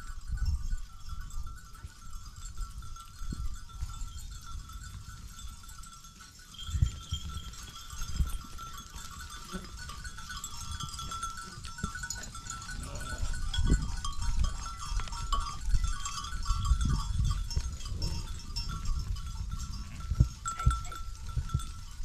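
A flock of sheep and goats grazing, with animal bleats now and then over a faint steady high ringing. Low rumbling gusts of wind on the microphone come and go and are the loudest sound.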